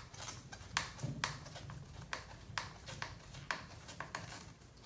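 A series of sharp, light clicks and taps, about two a second and unevenly spaced, from hands fitting hard plastic parts and a screw on an RC truck's chassis.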